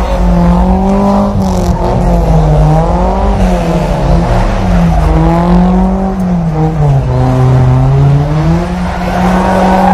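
An old sedan's engine revving hard and steadily, its pitch swinging up and down as the car spins donuts, with its tyres spinning and sliding on dusty pavement.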